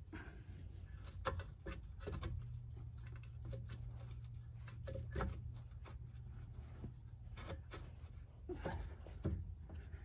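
Scattered small metal clicks, taps and scrapes as hands work a hydraulic cylinder's pivot pin out of its mount.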